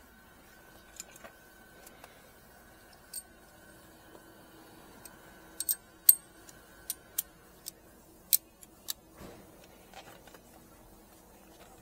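Sharp plastic clicks and snaps, about a dozen, spread over several seconds and loudest about six seconds in: a pry tool working loose the clipped interior trim around a BMW E90's gear selector. A faint steady hum runs underneath.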